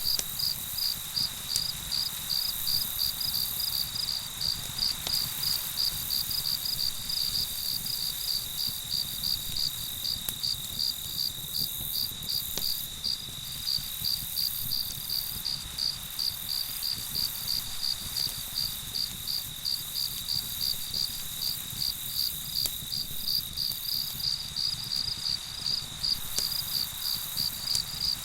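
Crickets chirping in an even rhythm, about two or three chirps a second, over a continuous high-pitched trill, with faint crackles from a campfire underneath.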